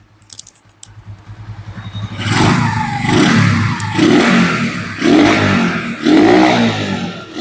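Upgraded Suzuki Axelo 125 single-cylinder four-stroke engine with its stock exhaust, ticking over quietly and then revved hard about two seconds in. The throttle is blipped several times, about once a second, and the engine rises and falls back each time.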